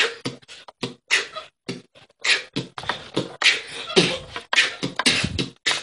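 A person beatboxing: a quick, uneven run of short mouth-made puffs, clicks and hisses.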